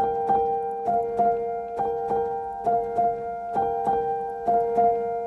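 Outro background music: a short figure of plucked or struck notes, about two to three a second, repeats over a steady held tone.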